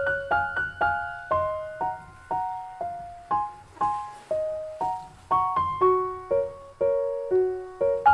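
Background music: a gentle piano melody of single notes, about two a second, each ringing and dying away.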